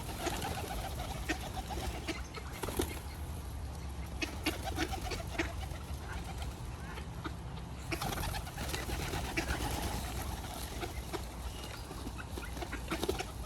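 Pigeons cooing in a warbling run that comes and goes, among scattered short clicks, over a steady low rumble.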